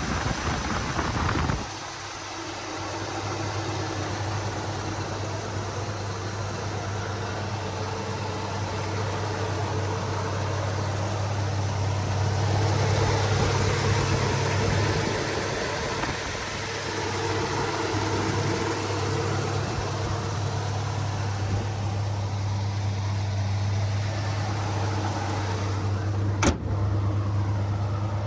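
1974 Chevy Nova's engine idling steadily, a little louder for a few seconds midway. A single sharp click comes near the end.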